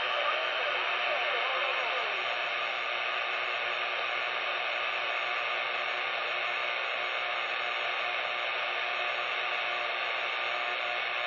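CB radio receiver hissing with steady static between transmissions, the squelch open on an empty channel. A few faint falling whistles drift through the hiss in the first two seconds.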